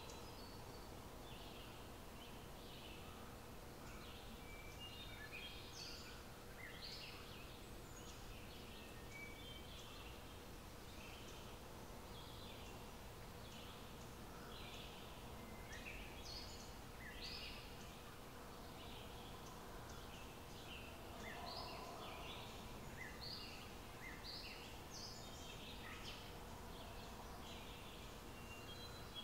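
Birds chirping in short, scattered calls over a low, steady background noise with a faint steady hum.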